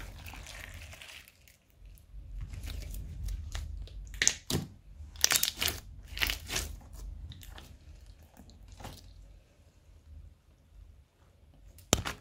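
Glitter slime with sequins and small beads mixed in being squeezed and kneaded by hand: a soft rustle at first, then irregular sticky pops and crackles, thickest around the middle and again near the end.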